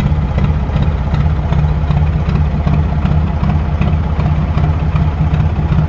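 Narrowboat's diesel engine idling with a steady, even low throb.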